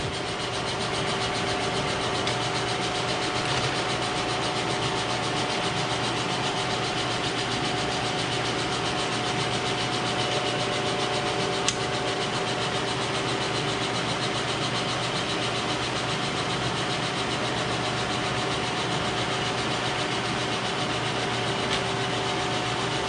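Kearney & Trecker 2HL horizontal milling machine running steadily with its power feed engaged: a continuous drone of motor and feed gearing with a few steady tones, and one sharp click about halfway through.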